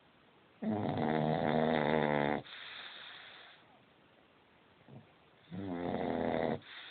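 A pug snoring loudly: two long snores about five seconds apart, the first near two seconds long and the second about one, each followed by a softer breath.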